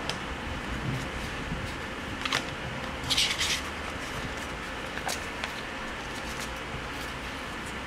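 Paper inserts and cards being handled and slid out of a cardboard LG G5 phone box: a few light taps and one louder, short paper rustle about three seconds in, over steady background room noise.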